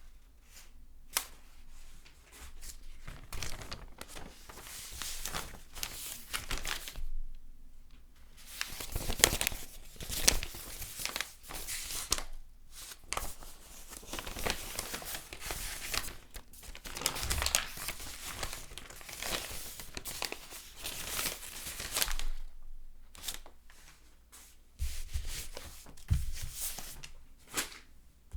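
Paper pages being turned and handled: a long run of crisp rustling swishes, with short lulls between groups of turns.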